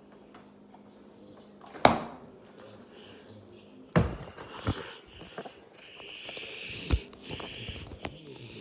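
A sharp thud about two seconds in, then knocks and rubbing from a phone being picked up and handled, with a child's close breathing and sniffing right on the phone's microphone.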